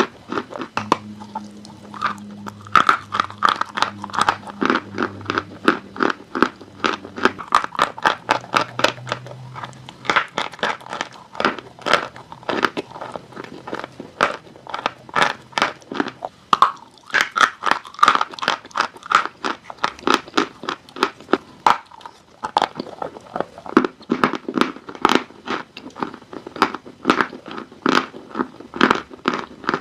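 Dry chalk being bitten and chewed close up: a steady run of sharp, dry crunches, about three a second, with brief lulls.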